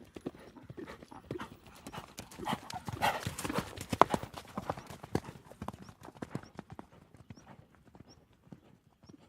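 A rapid, irregular run of knocks and clicks that grows louder to a peak about three to four seconds in, then thins out and fades away.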